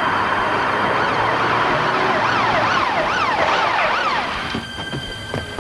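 Emergency-vehicle siren in a fast rising-and-falling yelp, several sweeps a second, over a hissing wash of street or engine noise. The siren fades about four and a half seconds in, and music with steady held notes takes over near the end.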